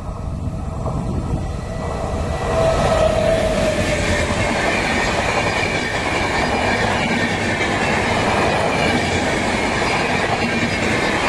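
Passenger train passing close at speed. The sound swells sharply about two and a half seconds in as the front of the train goes by, then holds as a steady loud rush of the coaches' wheels running on the rails.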